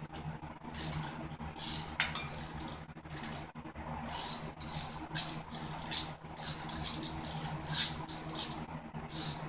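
Ratchet wrench worked back and forth in short strokes: quick bursts of metallic clicking about every half second, with a couple of brief pauses.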